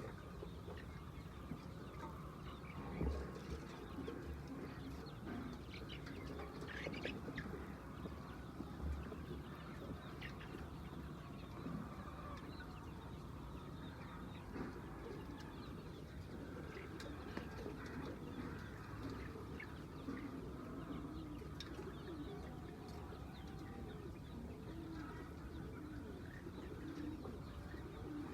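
A flock of laying hens calling continuously, a dense low clucking and murmuring with frequent short higher chirps.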